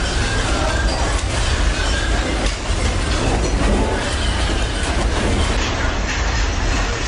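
Store shelving and merchandise rattling and clattering over a continuous loud low rumble, as a strong earthquake shakes the building.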